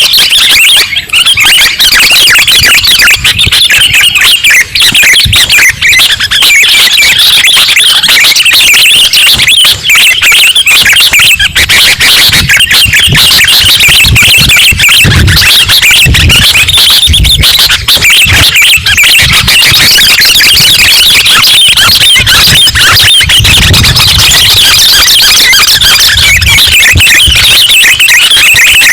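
Sooty-headed bulbuls (kutilang) chirping and chattering without pause, many calls overlapping, as a bird-lure recording played very loud throughout.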